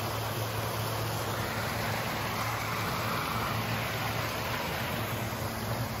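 Steady rushing of running water from a small garden stream and waterfall, with a low steady hum underneath.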